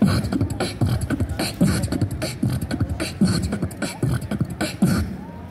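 Beatboxing a dubstep beat with the mouth: a fast, steady run of percussive drum hits over a low bass line.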